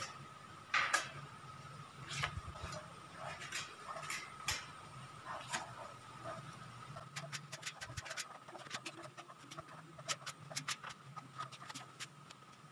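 Putty knife scraping and tapping on square steel tubing as it spreads two-part polyester filler over welded joints: irregular scrapes and clicks, with quick runs of light clicks in the second half.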